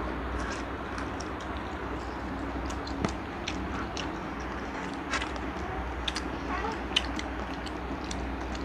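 Children chewing and biting into fried chicken and sausages, with scattered sharp clicks of forks and mouths over a steady low hum.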